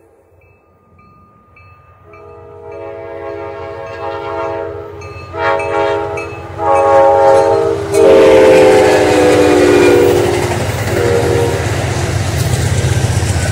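Amtrak passenger train led by NPCU cab car 90224 sounding its air horn in several long and short blasts, growing louder as it approaches. Its pitch drops a little as it comes level, and the rumble of the train passing close takes over, the loudest part, about two-thirds of the way through.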